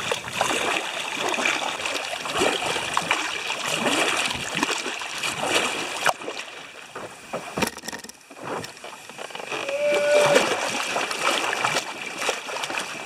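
Double-bladed paddle strokes in river water, splashing and dripping as the blades dip and pull on alternate sides to drive a canoe along steadily.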